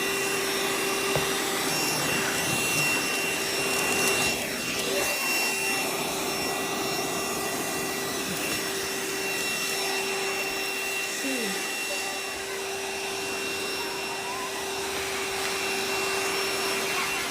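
VacLife cordless handheld vacuum cleaner running steadily: a constant motor whine over the rush of air.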